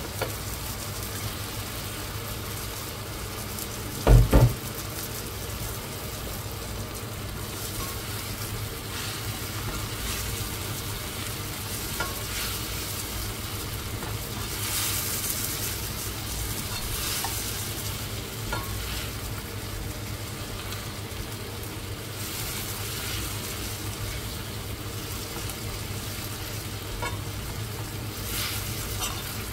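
Food sizzling in a frying pan while being stirred. There is a loud double knock about four seconds in and a few light clicks scattered through.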